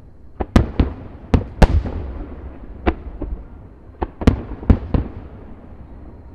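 Fireworks shells bursting in quick succession, about ten sharp bangs in two clusters with rumbling echoes between them, then a lull near the end.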